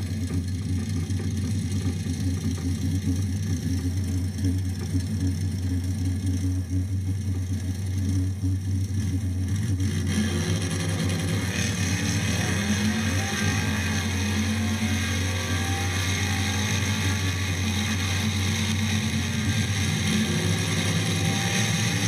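1967 Plymouth Barracuda's engine idling with a steady low note while the car waits in a drag-strip lane. From about ten seconds in, a higher hiss and a wavering mid-pitched engine sound join it.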